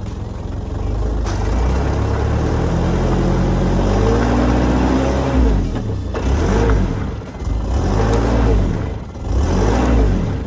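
Car engine revving hard while stuck in mud: one long rev climbing in pitch over the first few seconds, then three shorter surges of revving, the sound of a vehicle trying to drive out of the mire.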